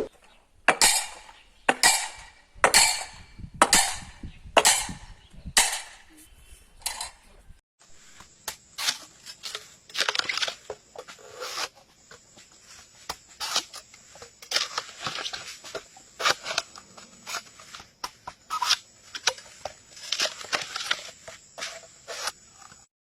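A series of crisp crunches or cuts, about one a second, each dying away quickly. A third of the way through it changes to quicker, irregular crackling and clicking crunches.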